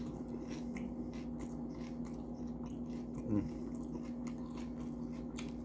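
Close-up chewing of a mouthful of Doritos nachos: a run of small, irregular crunches. About three seconds in, a brief low hum falls in pitch.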